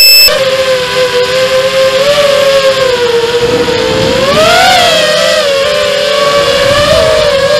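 FPV racing quadcopter's four RCX 2206 2250 KV brushless motors spinning 5-inch three-blade props, whining at a steady pitch that rises and falls back with a throttle punch about four and a half seconds in, heard through the onboard Mobius camera. A short loud electronic beep sounds right at the start.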